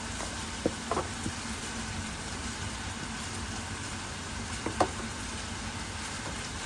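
Chicken frying in a pan, sizzling steadily, with a few light knocks around a second in and again near five seconds in.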